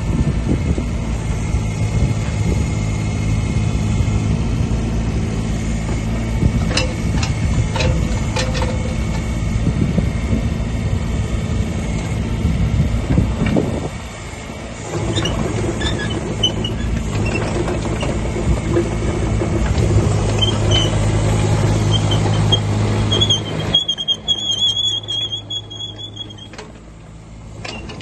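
Kubota KX36-2 mini excavator's diesel engine running under hydraulic load as the machine works its boom and bucket and tracks about. Near the end the engine note drops and a high-pitched squeal is heard for a few seconds.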